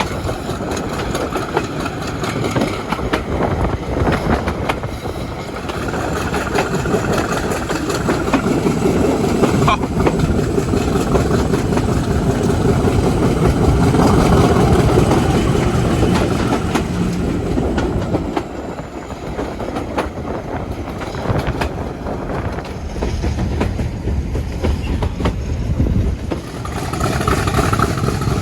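English Electric Class 50 diesel locomotive 50026 working under power with its train, its engine running roughly with a misfire. The sound builds to its loudest about halfway, then falls back.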